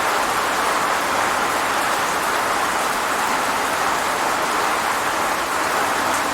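Rain falling steadily, an even, unbroken hiss of drops on surfaces.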